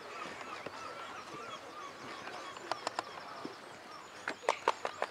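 Many birds calling at once in a busy chorus of short calls. A couple of sharp taps come around the middle, and a quick run of sharp taps near the end.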